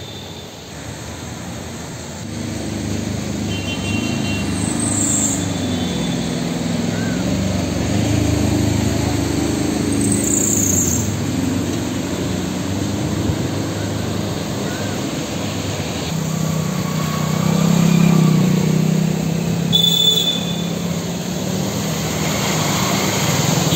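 Motor traffic driving through a flooded street: the engines of a small truck, cars and motorcycles run steadily as they push through the water, growing loudest about three-quarters of the way through. A couple of brief high-pitched beeps sound over it.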